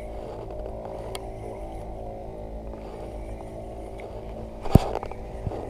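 Steady, even hum of a boat engine running at idle. One sharp knock about three-quarters of the way through, with a fainter click about a second in.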